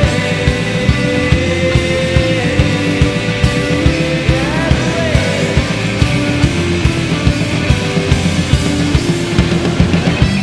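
Alternative rock band playing live: electric guitars and electric bass over a steady drum beat.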